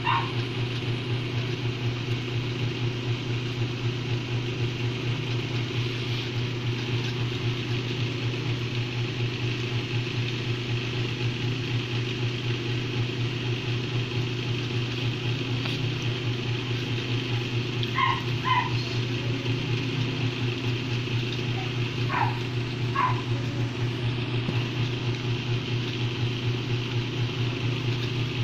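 A steady low machine hum with a fast, even pulse, and two pairs of short, high squeaks about two-thirds of the way through.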